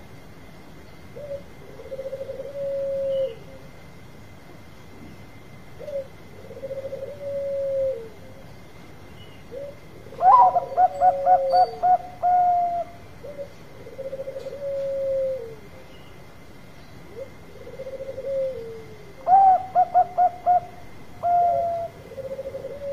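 Zebra dove of the Bangkok perkutut type singing: soft, slightly falling coos every couple of seconds. Twice, about ten seconds in and again near the end, a louder phrase opens with a quick stutter of six or seven short notes and runs into a long coo.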